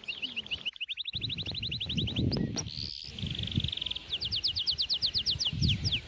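A songbird singing rapid trills of short, high repeated notes, several phrases in a row, with a run of low thuds underneath.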